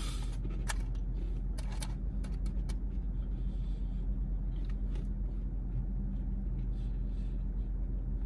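Crunchy caramel rice crisps being chewed in short crackling bites, over a steady low hum.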